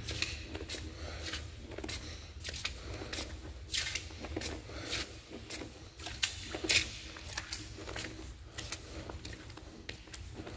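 Footsteps scuffing and crunching on the gritty concrete floor of a drain pipe, at a walking pace of one to two steps a second.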